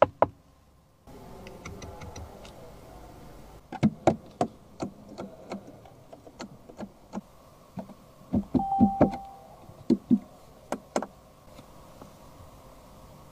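Sharp plastic clicks of an SUV's steering-wheel, centre-console and screen-side buttons being pressed one after another, several in quick pairs. A short electronic beep from the car sounds partway through.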